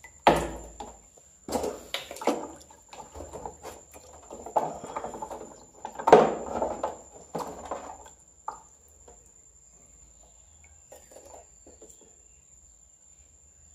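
Hands splashing and rubbing a small pump part in a plastic tub of water, in irregular bursts of sloshing, loudest about six seconds in. After about eight seconds the water goes still and only a few faint clicks of handling remain.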